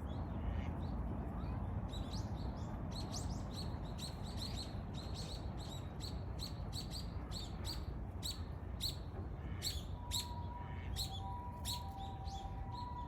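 Eurasian tree sparrows chirping, many short chirps in quick succession. Near the end a distant siren comes in as two steady tones over a low background rumble.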